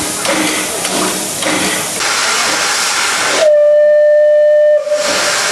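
Steam locomotive FS 728-022 hissing steam, then giving one steady steam-whistle blast of about a second and a half a little past the middle, after which the hissing returns.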